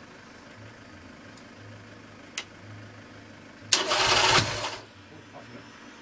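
Vincent motorcycle engine being kicked over in a start attempt: about four seconds in it gives one loud burst lasting about a second, then dies away without catching.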